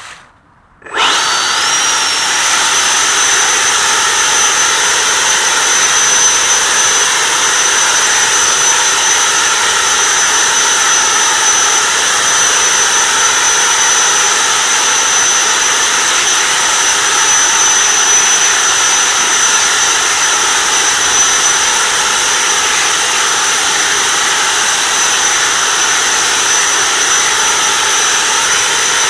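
Homemade leaf blower starting up about a second in, its whine rising quickly in pitch, then running steadily at full speed: a constant high whine over a loud rush of blown air.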